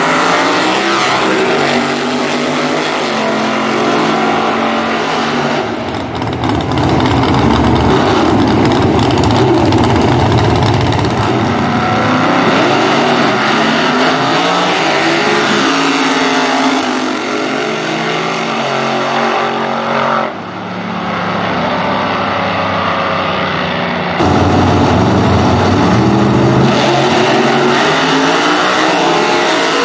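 Drag-racing gassers, one a 1938 Chevy truck, launching side by side at full throttle. The loud engines rise in pitch in repeated sweeps and drop back, with sudden changes in sound where one run gives way to the next.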